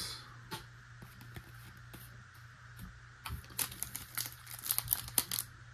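Light clicks and taps of trading cards being sorted by hand, then from about three seconds in a busy run of crinkling as a trading-card pack's wrapper is handled.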